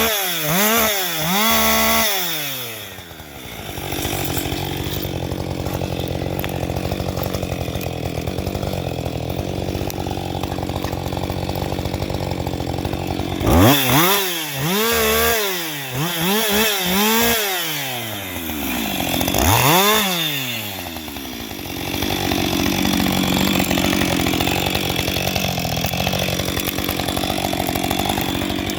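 Husqvarna 560XP two-stroke chainsaw revving up and down in quick blips, then running steadily under load as it cuts wood for about ten seconds. Midway it revs and drops several times more, then settles into a steady cut again near the end.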